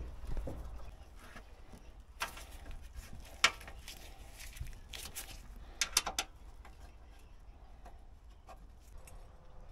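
Hand-tool handling noise: sharp metallic clicks and clinks of a hex key working the screws of a sheet-steel tray. A loud single click comes about a third of the way in and a quick run of clicks just past the middle.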